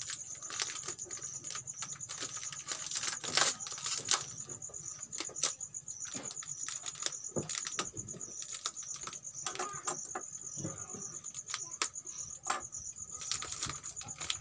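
Plastic wrapping around a flower bouquet crinkling and rustling as it is handled, in irregular sharp crackles with a few louder ones about three to four seconds in.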